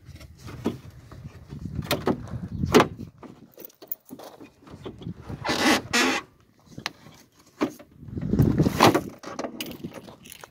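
Footsteps crunching on gravel and rustling handling noise, with scattered clicks and two louder noisy bursts, one about halfway through and one near the end.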